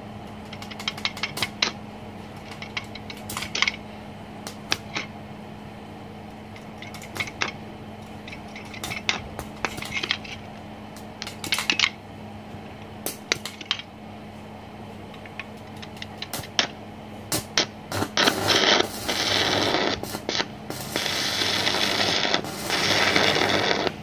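Sharp metal clicks and taps at the stick-welding electrode holder as a spent electrode is changed, over a steady hum. About 18 seconds in, the arc is struck and the Smarter TIG-180S inverter welder crackles and hisses through two stretches of stick welding, set at about 145 amps.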